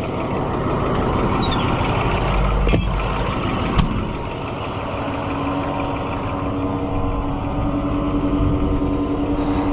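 Farm tractor engine running steadily, with two sharp knocks about three and four seconds in and a steady hum joining about halfway through.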